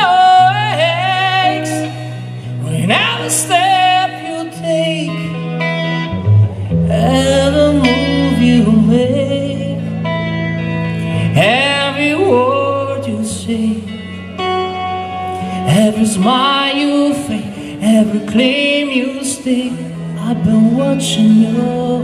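Live band song: a singer's wavering melody over guitar, with long held bass notes that change every couple of seconds.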